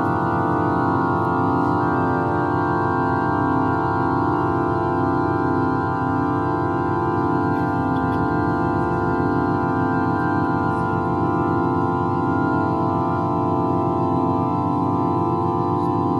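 Pipe organ holding a dense, steady tone cluster: a thick mass of many sustained notes beating against one another in the low-middle range. A few notes drop out along the way, some high ones about four seconds in and a lower one about seven seconds in.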